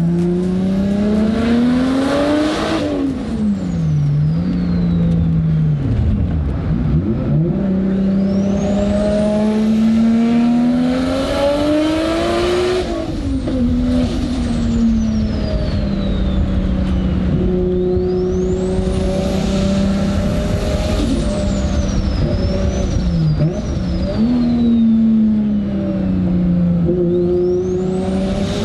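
Nissan Skyline R32 GTR's RB26 straight-six with a big single turbo, driven hard uphill: the engine note climbs through the revs and drops at each gear change or lift-off, several times over. A high turbo whistle rises with each pull and falls away when the throttle closes.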